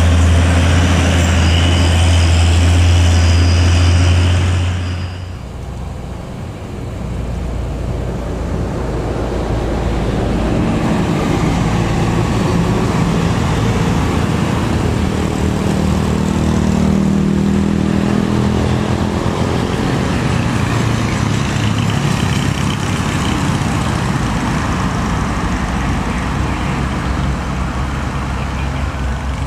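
Diesel truck engine running loud and low while climbing past at close range, dropping away about five seconds in. Another heavy vehicle's diesel engine then builds up gradually and keeps running steadily under load.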